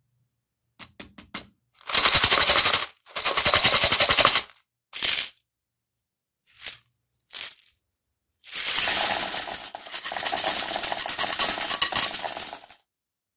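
Many small hard-coated chocolate candies clattering against ceramic in dense rattles. There are two long rattles in the first few seconds and a few short ones, then one of about four seconds as they are tipped off a plate into a toilet bowl.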